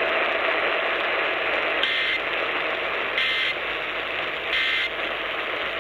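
Three short squawks of Emergency Alert System end-of-message data tones, just over a second apart, over steady AM radio hiss. They mark the close of the EAS test.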